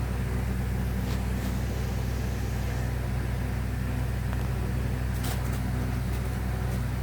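Steady low electrical hum of a motor or appliance, with a couple of faint soft clicks about a second in and again about five seconds in.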